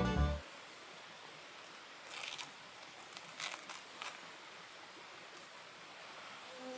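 Banjo-led bluegrass music stops within the first half second. Then a faint quiet outdoor background follows, with a few soft rustles or crunches about two, three and a half and four seconds in.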